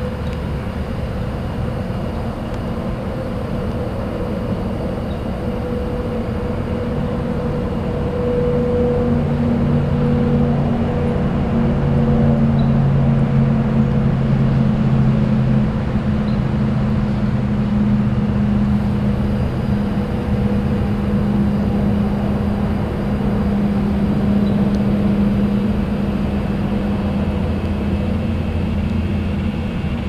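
Steady low rumble of vehicle engines and road traffic, with a droning engine hum that grows louder through the middle.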